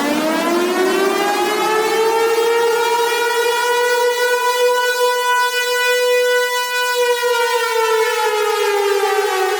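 Civil defense warning siren wailing. Its pitch climbs over the first few seconds, holds steady at the top, then begins a slow slide down near the end.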